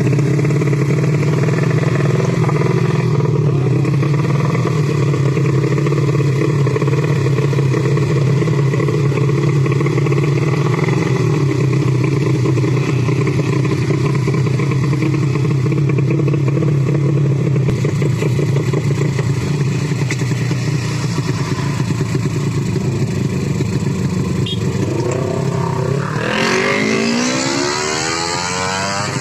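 Racing underbone motorcycle engines held at a steady high pitch for a long stretch, then about 26 seconds in the pitch climbs steeply as they open up and accelerate hard, rising again near the end as they change up a gear.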